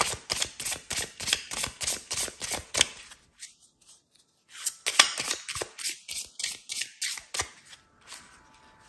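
A deck of cards being shuffled by hand: rapid flicking and slapping of the cards, about seven a second, in two runs with a short pause about three and a half seconds in.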